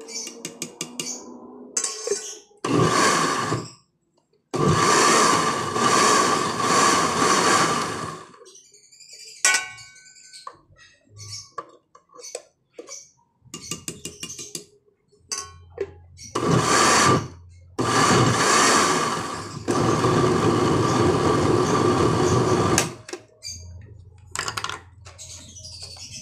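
Electric countertop blender running in four bursts, two short and two several seconds long, blending a thick jackfruit and cassava cake batter, with a steady motor whine under the churning. Short clicks and knocks come in the pauses between runs.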